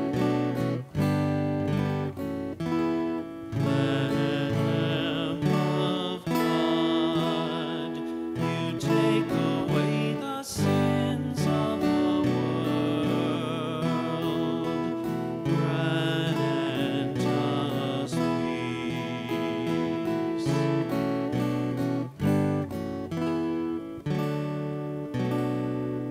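Acoustic guitar strummed, playing chords that change every second or so.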